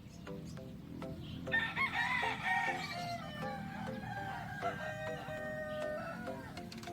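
A rooster crows once, a long call starting about a second and a half in and ending on a drawn-out falling note. Background music with a steady repeating note pattern plays throughout.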